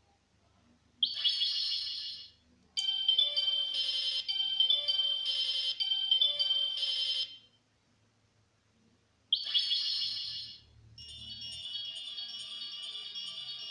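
Bandai Proplica Spiral Heart Moon Rod toy wand playing its electronic sound effects: a sparkling chime, then a short high-pitched melody of repeated notes lasting about four seconds. After a pause comes a second chime, then a steady shimmering twinkle that carries on.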